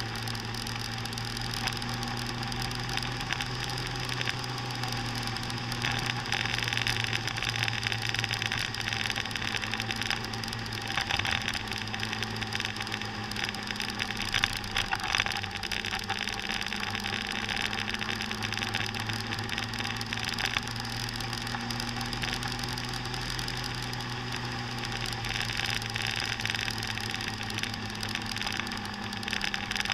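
Motor scooter's engine running steadily at cruising speed, a fairly even hum. Wind and road rush over it swells and fades several times.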